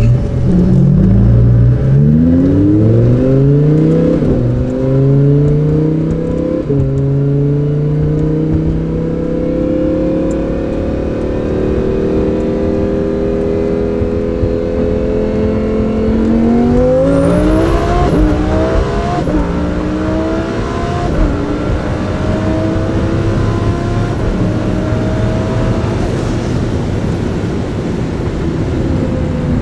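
Twin-turbo Lamborghini Huracán's V10 heard from inside the cabin, accelerating hard from a standing start with quick upshifts about every two seconds, then pulling more gently. About two-thirds of the way in it pulls hard again through several rapid upshifts, with a high whistle over the engine, and eases off near the end.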